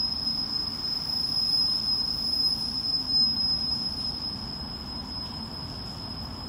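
Approaching diesel freight locomotive: a low steady engine rumble with a steady high-pitched whine over it.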